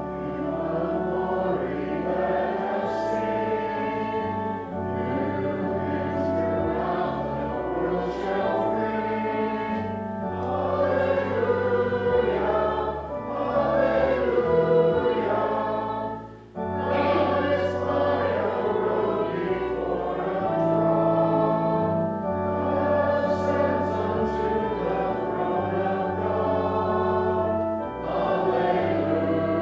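A church congregation singing a hymn to keyboard accompaniment, with a short break between lines about halfway through.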